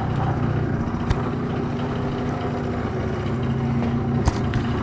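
The 49cc two-stroke engine of a 2005 Yamaha Zuma YW50 scooter idling steadily. Two sharp clicks come through it, one about a second in and one near the end.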